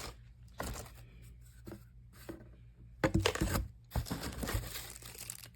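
Plastic packaging crinkling and rustling as small parts are unwrapped and handled. It comes in scattered short rustles, with a louder stretch of crinkling about three seconds in.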